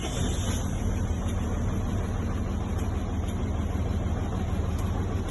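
Cummins ISB straight-six diesel engine of a Freightliner M2 106 running at a steady idle while it misfires on cylinder 2, a fault later traced to valve lash far out of adjustment.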